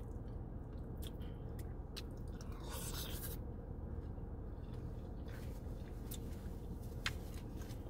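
Close-up eating sounds of birria tacos being chewed, with scattered wet mouth clicks and a short slurp of consommé about three seconds in, over a steady low hum.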